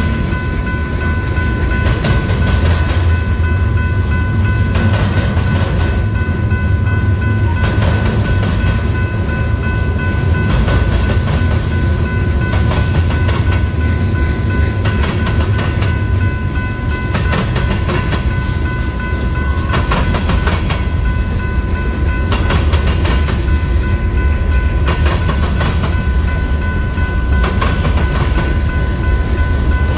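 Union Pacific freight cars (tank cars, gondolas and covered hoppers) rolling past over a railroad diamond crossing: a steady heavy rumble with irregular wheel clacks as the wheels pass over the crossing, and a steady high ringing tone running over it.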